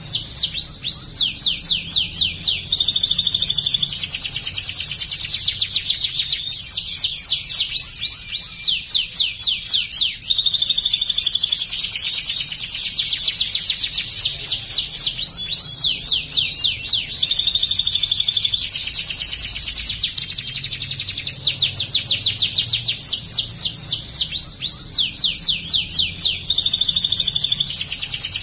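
Domestic canary singing in long phrases of rapid trills and fast repeated notes, with short breaks between phrases. Its song carries the chattering notes of the bar-winged prinia (ciblek), learned by imitation.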